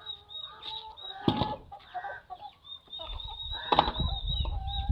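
A flock of chickens clucking and calling, with two loud, sharp calls about a second in and near the end. A low rumble joins from about three seconds in.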